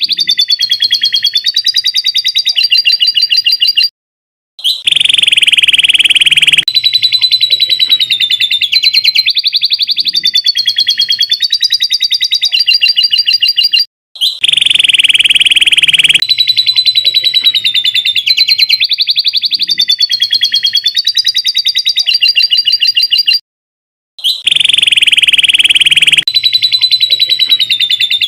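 Canary singing long, fast, continuous trills in a masteran bird-song training recording made of canary and lovebird song. The song breaks off briefly three times, and the same passage repeats each time, as in a loop.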